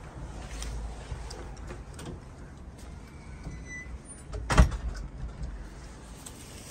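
A front door being pulled shut: one loud, sharp knock about four and a half seconds in, over a low steady rumble of street noise.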